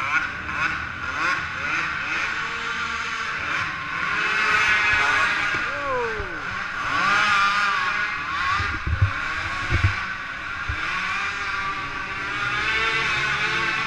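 Several 450cc single-cylinder four-stroke race quads racing around a dirt track, their engines revving up and down over one another. One quad passes close by about six seconds in, its engine note dropping as it goes past, and there are two low thumps a little past the middle.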